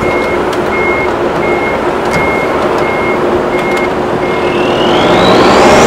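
A vehicle's reversing alarm beeping steadily, about one high beep every 0.7 seconds, over the steady hum of a running engine. Near the end, a whine rises sharply in pitch as a motor speeds up.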